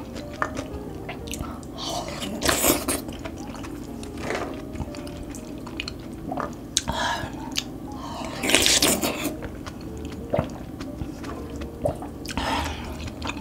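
A person eating thick Korean loach soup (chueotang) from a spoon: wet slurps and chewing in about five short bursts a couple of seconds apart, the longest about eight and a half seconds in.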